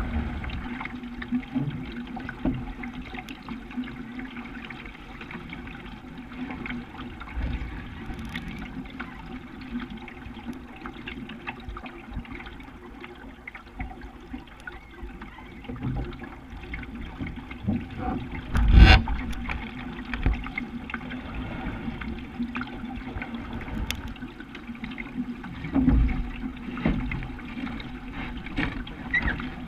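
Water sloshing and lapping against the hull of a Rooster 8.1 sailing dinghy under way, close to the bow. One sharp knock stands out a little under two-thirds of the way through.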